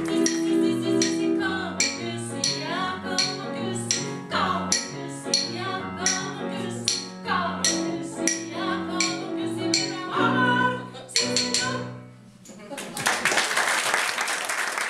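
A woman singing a 1920s-style song with piano accompaniment in a steady rhythm. The song ends about twelve seconds in and the audience breaks into applause.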